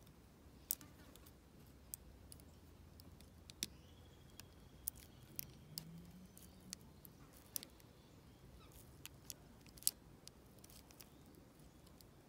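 A dozen or so small, sharp metallic clicks at irregular intervals as a tool is worked in the keyway of a brass dimple lock cylinder.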